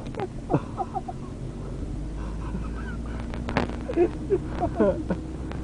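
Steady low rumble of a car driving at motorway speed, heard from inside the cabin, with runs of short squeaky, honk-like cries over it, thickest around 3.5 to 5 seconds in.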